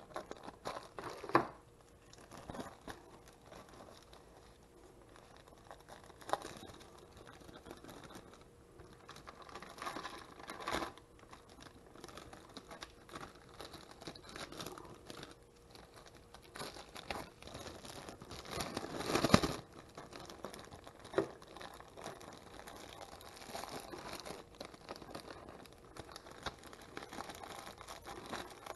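Thin plastic zip-top sandwich bags crinkling and rustling as hands pack cooked spaghetti squash into them. The rustles come off and on, with a louder burst of crinkling about two-thirds of the way through.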